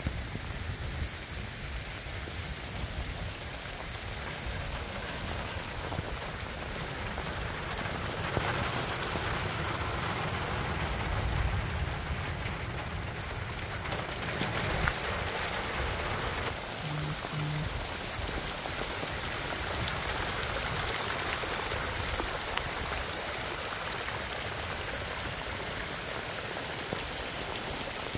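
Heavy rain falling steadily: an even hiss of drops striking the ground and roofs, with scattered sharp ticks of single drops.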